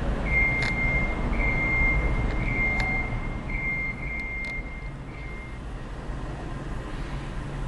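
A high electronic beeper sounds in a run of about five long beeps, roughly one a second with short gaps, stopping a little past halfway, over a steady low rumble of street traffic.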